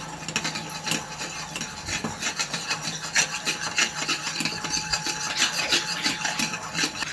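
A spoon stirring water and glue in a bowl for slime, scraping round and round against the bowl in quick, irregular strokes.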